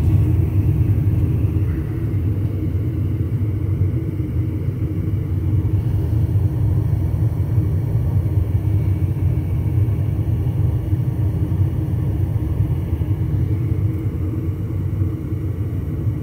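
80% gas furnace running with all four burners lit: a steady low rumble of burner combustion with a faint mechanical hum.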